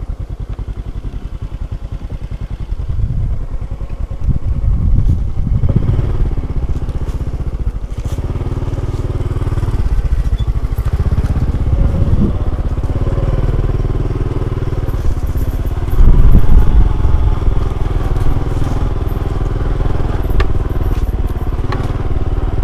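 Small motorcycle engine running under way, its pitch rising and falling with the throttle over a steady low rumble, getting louder about two-thirds of the way through.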